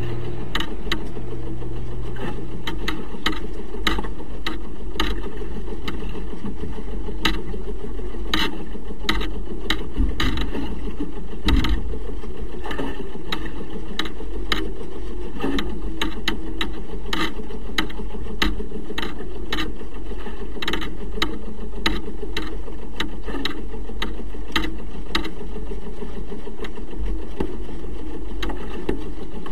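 Steady rushing wind and water noise aboard a heeled-over sailing yacht, with irregular sharp clicks and knocks from the rig and deck gear, one to three a second, and one louder knock near the middle.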